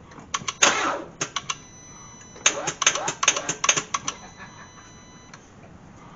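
Cadillac CTS starter solenoid clicking on a drained battery as the key is turned: a sharp burst under a second in, a few single clicks, then a fast chatter of clicks from about two and a half to four seconds in, over a thin steady tone. The engine does not crank or start; the owner puts the flat battery down to the headlights having been left on.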